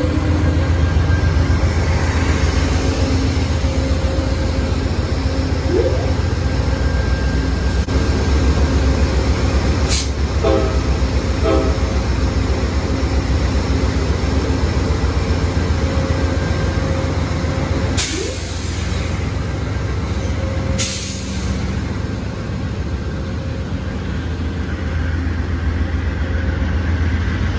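Amtrak P42DC diesel locomotive's 16-cylinder GE engine running loud and steady close by, with a deep rumble. Three short sharp sounds come about ten seconds in and twice more later.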